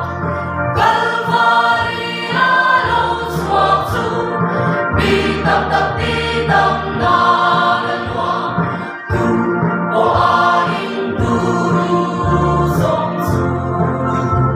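Mixed choir of men's and women's voices singing a Mizo hymn in harmony, in continuous sung phrases with a brief dip about nine seconds in.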